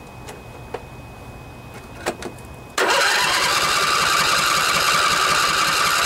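Electric starter cranking the Briggs & Stratton 24 HP twin-cylinder Intek engine of a Craftsman riding mower, starting suddenly about three seconds in and going steadily without the engine catching: the fuel pump is still filling the drained carburetor.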